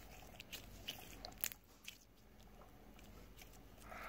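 Clear slime being stretched and worked by hand: faint sticky clicks and small pops, mostly in the first two seconds.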